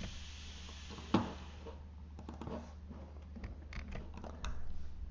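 Computer keyboard keys clicking now and then during typing, with one sharper click about a second in and a few lighter ones later, over a steady low hum.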